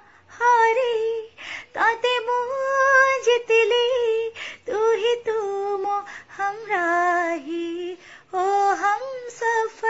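A woman singing an Odia song solo, without accompaniment, holding notes and sliding between them in ornamented turns.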